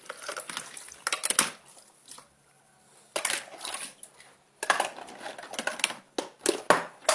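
Small dishes and little pots being handled and set down in a series of sharp clatters, with a short quiet pause partway through and a busier run of clatters near the end.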